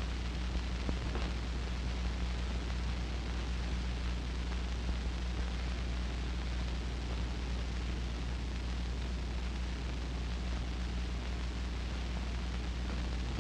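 Steady hiss and low hum of an early-1930s optical film soundtrack. No other sound stands out.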